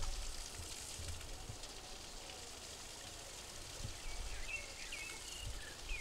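Steady outdoor hiss with low rumbling underneath, and a few short high chirps starting about four seconds in.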